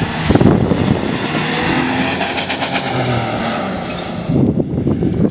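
A Toyota Land Cruiser pickup's engine revving as it drives down a sand dune and away across the sand, under a loud rushing noise. The rushing noise eases off about four seconds in.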